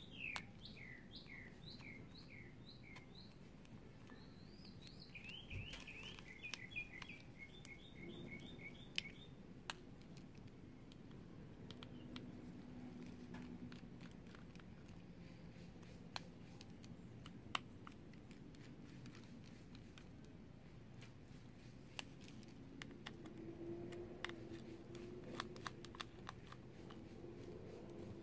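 A small songbird chirps in a quick run of short notes for the first nine seconds or so. Through the rest, faint scattered light clicks and taps come from a small screwdriver and tiny screws being worked on a phone's frame.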